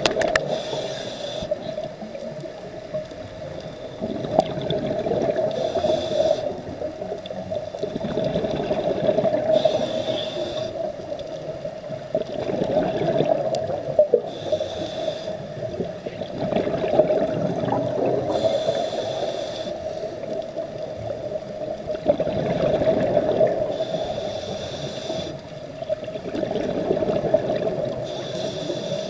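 Scuba diver breathing through a regulator underwater: a short hiss of inhalation about every four to five seconds, each followed by a longer bubbling rumble of exhaled air, over a steady hum.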